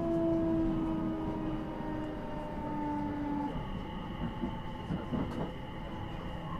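Electric commuter train heard from inside the carriage: running rumble with the traction motors' whine, several tones that slowly fall in pitch. A higher steady whine joins about halfway through.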